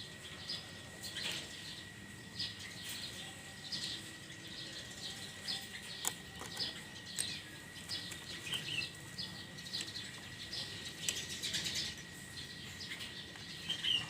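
Small birds chirping at irregular intervals, with a few light clicks and a faint steady high tone underneath.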